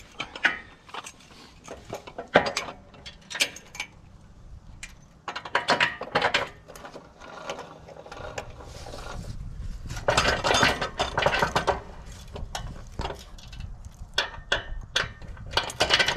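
Hand-cranked trailer jack, fitted as a leveling leg on a Wood-Mizer LT28 sawmill, being set with its crank handle and wound to level the mill: irregular metal clinks and clanks and gear clicks, thickest in two spells of cranking. A low rumble comes in about halfway through.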